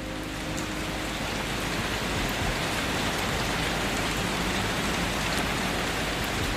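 Steady rain falling, an even, dense patter of drops that grows a little louder over the first couple of seconds and then holds. A faint held low tone fades out early on.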